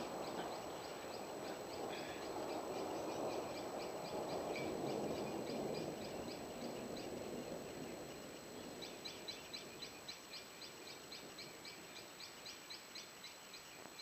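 Distant thunder rolling, swelling and then dying away over about eight seconds. Steady high chirping, about two chirps a second, runs behind it and is plain once the rumble fades.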